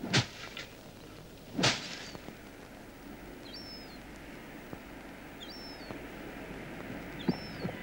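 Two sharp strikes of wooden flails beating a heap of dried crop, about a second and a half apart in the first two seconds. Then a small bird repeats a short high chirp about every two seconds over a faint steady outdoor background.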